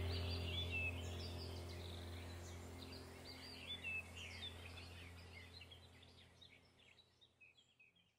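Background soundtrack of small birds chirping over a low steady hum, fading out to silence at the very end.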